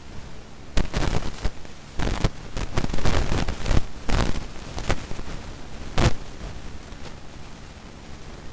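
Irregular rustling and crackling: a cluster of short bursts from about one to five seconds in and a single sharp one about six seconds in, over a steady hiss.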